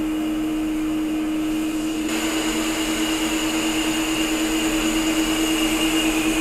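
Metal lathe turning a cast-iron wheel hub: a steady drive hum and whine with the tool's cutting hiss, which grows louder about two seconds in and pulses rapidly and evenly. The brittle cast iron cuts into small broken chips rather than long ribbons.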